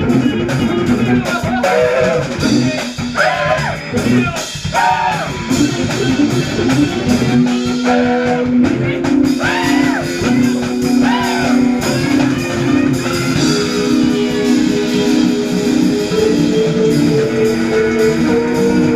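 Jazz fusion band playing with drums and electric guitar. Lead lines that bend up and down in pitch give way, about eight seconds in, to long held notes stacked over the drums.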